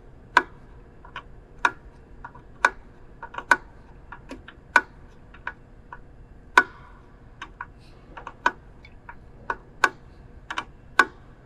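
Steel wrenches clicking and clinking against the high-pressure line's gland nut and fitting as the nut is tightened at the waterjet cutting head: irregular sharp metallic ticks, one sharper clink about two-thirds of the way through.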